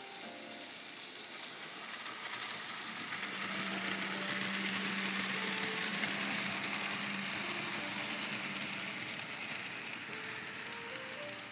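N scale model train running past on the layout: a steady whirring rattle of motor and wheels on the track that swells to its loudest about halfway through as the locomotive passes close, then fades, with a low hum under it in the middle.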